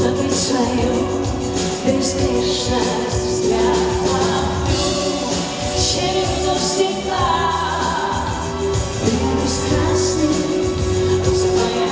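Live pop song played by a band with a steady beat, with singing over it.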